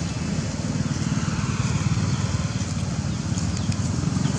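A motor engine running steadily, a low drone with a fast flutter.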